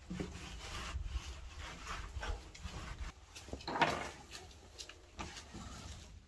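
A cloth rag rubbing and wiping across wooden planks in irregular strokes, the loudest about four seconds in.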